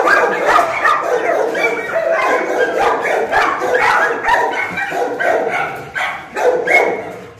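Several dogs barking and yelping over one another without a break: kennelled dogs worked up at the sight of another dog loose with a ball.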